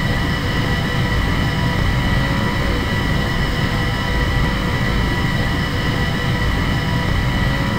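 A steady, unchanging drone: a low rumble with a constant high hum over it that never shifts in pitch.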